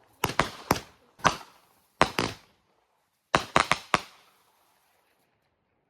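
Consumer fireworks going off: a string of sharp bangs in quick clusters, each with a short echoing tail. They stop about four seconds in.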